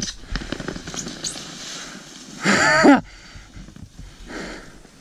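A person's brief yell about halfway through, over faint mixed outdoor noise.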